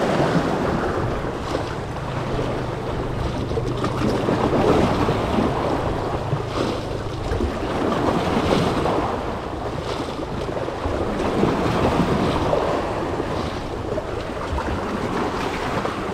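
Sea waves washing against a rocky jetty edge, a steady rushing noise mixed with wind on the microphone.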